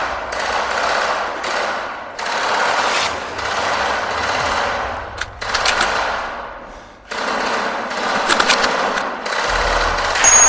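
Airsoft guns firing on full auto in repeated bursts of about a second each, with short pauses between bursts and a few sharp clicks.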